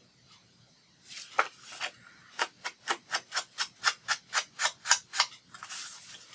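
Foam ink blending tool rubbed over a paper page edge to ink it: a few irregular strokes, then a quick even run of short brushing strokes, about four a second, for roughly three seconds.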